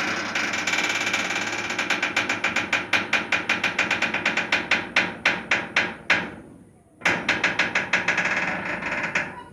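Creaking door hinge: a long drawn-out creak made of rapid ticks that slow to about four or five a second, breaking off just after six seconds in, then a second creak of fast ticks.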